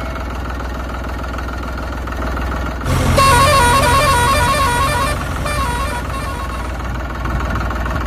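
A steady low engine drone, joined about three seconds in by a musical vehicle horn playing a short stepped tune for around two seconds, with a few more horn notes shortly after.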